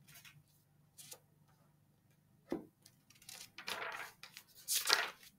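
Faint scattered clicks, then a cluster of short rustling noises in the second half, loudest near the end.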